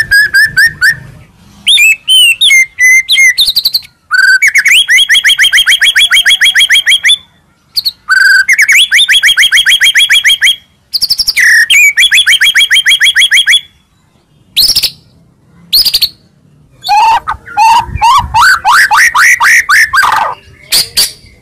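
White-rumped shama singing loud, rapid trilled phrases: three runs of quick rising notes at about ten a second, each lasting about three seconds with short pauses between, then a climbing series of notes near the end.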